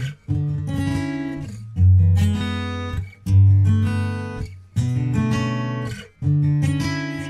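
Background music: acoustic guitar strumming chords, a new chord struck about every second and a half and left to ring out.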